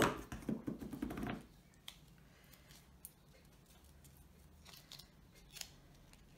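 Black adhesive tape being handled: a sharp knock at the start, then about a second and a half of crackly rasping as a strip is pulled off the roll. After that come a few faint clicks and rustles as the tape is pressed onto the cardboard box.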